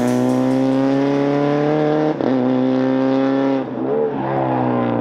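Subaru BRZ rally car's flat-four engine running hard under acceleration, its pitch slowly climbing, with a brief break about two seconds in and a dip near the end, then fading as the car pulls away.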